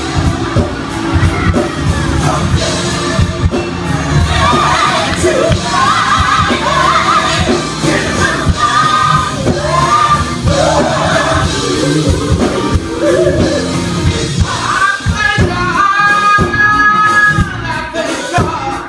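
Gospel vocal group of men and women singing into microphones over a live band with drums keeping a beat. Near the end the voices hold a long chord together in harmony.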